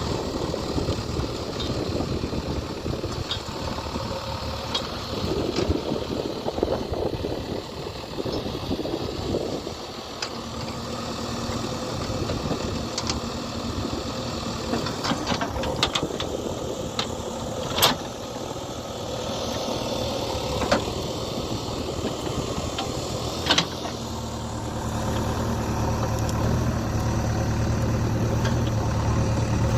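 JCB 3DX backhoe loader's diesel engine running as the machine works, with a few sharp knocks from the working gear in the second half. The engine's low hum grows louder near the end.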